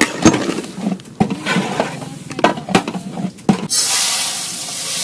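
Clatter and knocks of metal against a large cooking pot. About three and a half seconds in, this switches abruptly to a steady hissing rush as dry yellow mung lentils pour from a steel bowl into the big metal pot.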